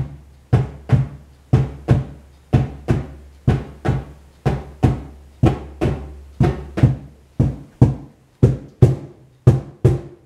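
Djembe played with bare hands in a steady rhythm of paired strikes, about one pair a second, with a deep bass boom under them. The boom drops away about seven seconds in, while the strikes go on.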